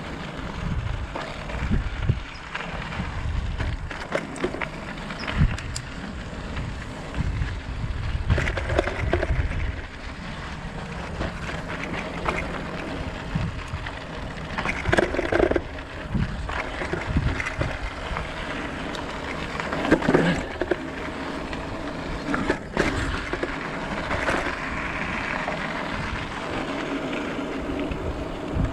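E-bike tyres rolling and crunching over a rough dirt and gravel trail, with the bike rattling and knocking over bumps. Wind buffets the chest-mounted microphone, heaviest in the first part.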